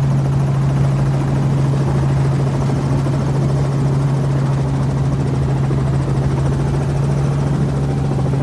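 Helicopter running steadily in flight, a constant low hum over a steady rush of noise.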